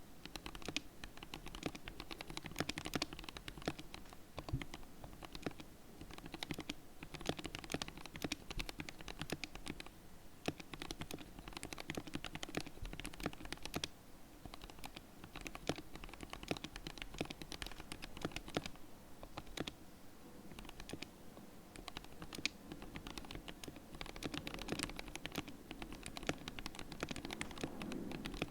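Steady, fast typing on a custom mechanical keyboard with lubed Gateron Yellow linear switches and PBT keycaps, a continuous run of key clacks with brief pauses.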